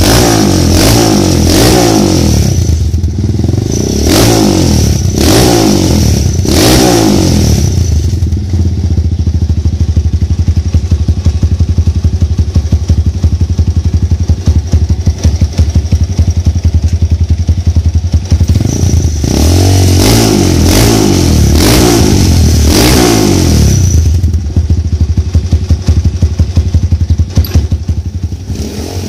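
Honda Tiger single-cylinder four-stroke engine in a trail motorcycle, revved in a run of short blips, then settling to an even pulsing idle, then blipped again about two-thirds of the way through before returning to idle.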